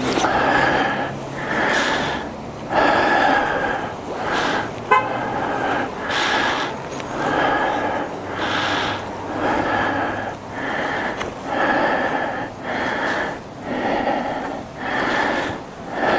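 Starter motor of a 2012 BMW G 650 GS Sertao's single-cylinder engine cranking slowly and labouring, swelling about once a second as it pushes through each compression stroke, and the engine not catching: the hard-starting fault the owner links to the decompressor. A sharp click about five seconds in.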